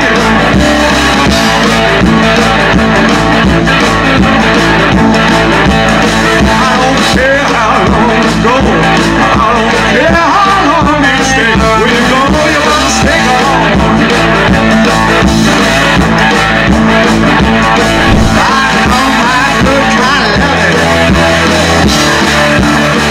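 Rock and roll music with guitar and singing.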